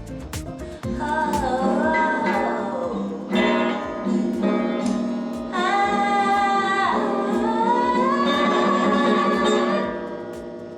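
Music: a woman singing long held, gliding notes over plucked guitar, starting about a second in and fading near the end.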